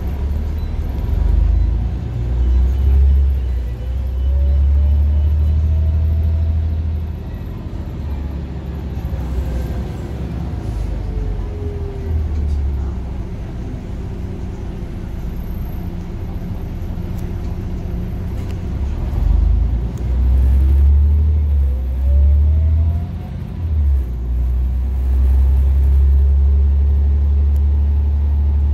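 Scania OmniCity bus heard from inside the saloon: its ZF automatic gearbox whines over the low engine and road rumble. The whine rises in pitch over the first few seconds, falls around the middle, and climbs again later, following the bus's road speed.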